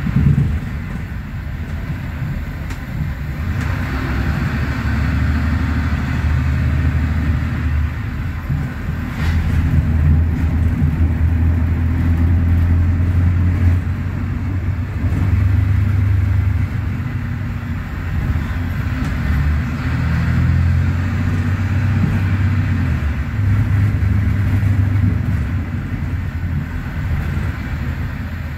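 Mercedes-Benz OM936LA six-cylinder diesel of an O500U city bus heard from inside the cabin, pulling under load uphill. Its low drone strengthens and eases in steps every few seconds, over a steady road rumble.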